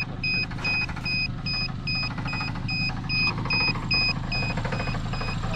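A vehicle's electronic warning beeper sounding short high beeps at an even pace, about two and a half a second, over an engine running.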